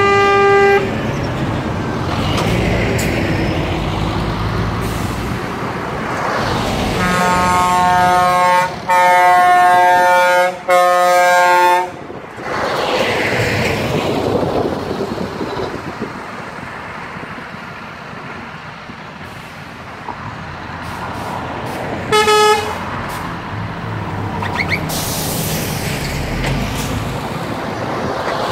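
Trucks in a convoy driving past one after another, engine and tyre noise swelling and fading with each pass. A truck horn sounds a multi-note chord right at the start, then in three long blasts about a third of the way in, the loudest part, and once briefly near three quarters through.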